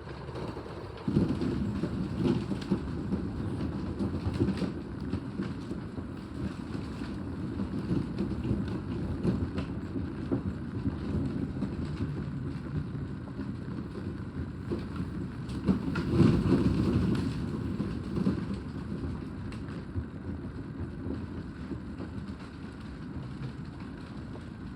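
Storm wind gusting hard and buffeting the microphone in a low rumble, with rain in the wind. It picks up about a second in and swells in a strong gust around the middle.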